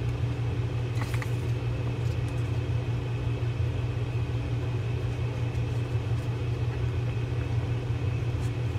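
Steady low hum of a motor or fan running in the room, with faint clicks about a second in and near the end as the graphite reel frame is handled.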